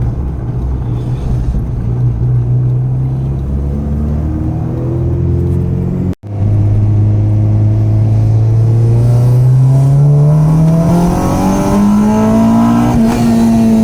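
Honda H22 four-cylinder engine in a Civic accelerating under load, its pitch rising steadily through the revs. The sound cuts out for a moment about six seconds in, then the engine pulls again, climbing higher until it levels off near the end.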